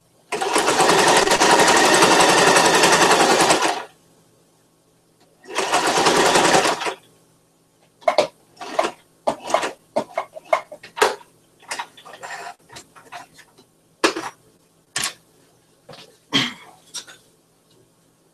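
Electric household sewing machine stitching fabric in two runs, the first about three and a half seconds, the second about a second and a half. Then a string of irregular sharp clicks and knocks.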